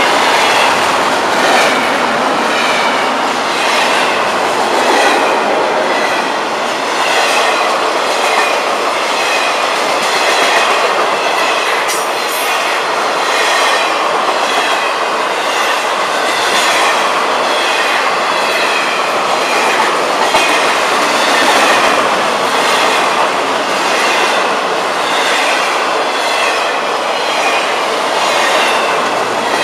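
Loud, steady rumble and rattle of a Florida East Coast freight train's intermodal cars rolling past: steel wheels on the rails with a repeating clickety-clack about once a second as the double-stack container cars and trailer flatcars go by.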